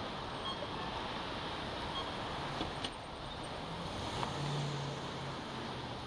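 Street traffic at a town intersection: a steady hiss of road noise, with a passing vehicle's low engine hum swelling about four seconds in.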